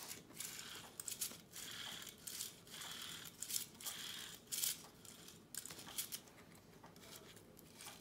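Faint, irregular clicks and rustles of a 1960 Princess phone's rotary dial mechanism being worked back and forth by hand, still stiff and gummy while freshly applied silicone oil loosens the seized dial.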